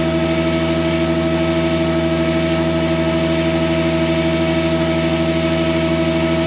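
Holzmann HOB 400V's drive motor and gearbox running steadily at top speed, a constant hum and whine with a faint, even pulsing. The owner believes the gearbox is damaged.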